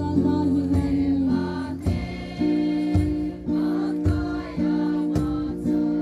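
A crowd singing together over music with held chords and a low beat about once a second.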